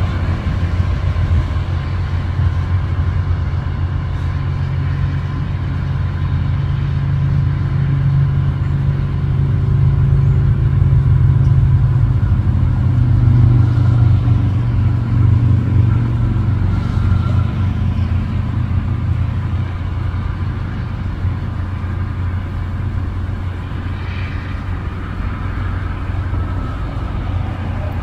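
Steady low engine rumble, swelling a little around the middle.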